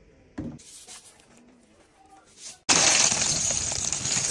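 Dry short pasta tubes poured into a pot of boiling water: a sudden, loud, dense rattling clatter of many hard pieces that starts a little past halfway. Before it, one dull thump about half a second in.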